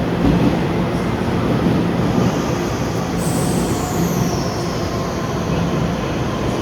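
TEMU2000 Puyuma tilting electric multiple unit at a station platform: a steady low rumble and hum, with a high whine that starts a little after three seconds in and falls in pitch.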